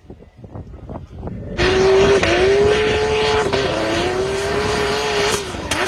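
Turbocharged Toyota 1JZ straight-six in a BMW E30 held at high revs through a drift. The engine note wavers up and down with the throttle over tyre noise, and it comes in suddenly about a second and a half in, after low, quiet noise.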